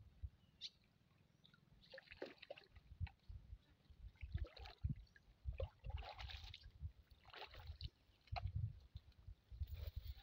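Water splashing and dripping in irregular bursts as a wet cast net is hauled out of a shallow river and gathered up by hand, over low thumps.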